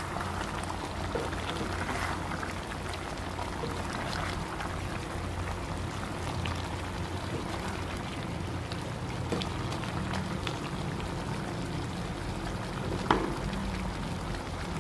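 Chicken curry simmering and bubbling in a pan over a low steady hum, with a wooden spatula stirring through the thick gravy. A single sharp click about thirteen seconds in.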